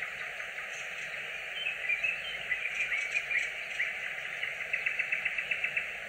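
Nightingale singing: a string of varied whistled and chirping phrases, then, about three-quarters of the way in, a fast run of a dozen or so repeated notes at roughly ten a second, over a steady background hiss.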